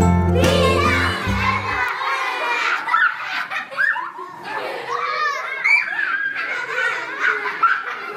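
A young child laughing, giggling and babbling in short high-pitched bursts. Acoustic guitar music is heard under the first two seconds and then stops.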